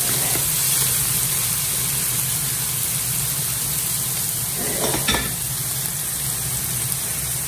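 Diced hotdog, carrots and onion sizzling in oil in a nonstick frying pan while a wooden spatula stirs them, with one brief knock about five seconds in.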